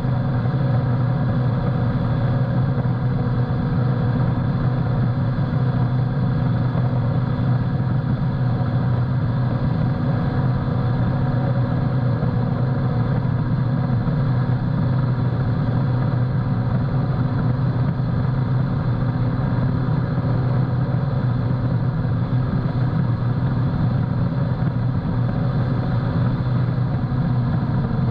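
Yamaha FX SVHO WaveRunner's supercharged engine running steadily at high speed, about 66 mph, a constant drone that does not change in pitch or level.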